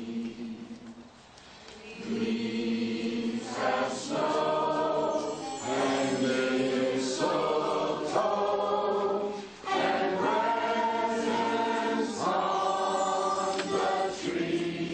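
A choir singing in harmony in long held phrases, with a short lull about a second in, after which the singing grows fuller.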